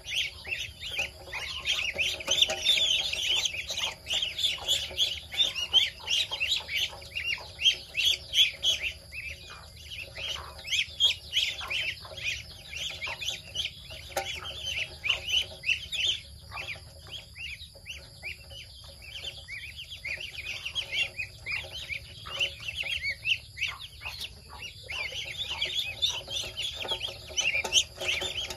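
A brood of ducklings peeping, many short high peeps overlapping in a dense, continuous chorus.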